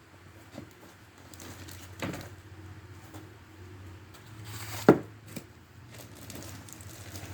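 A few handling knocks and taps, the loudest just under five seconds in, over a low steady hum.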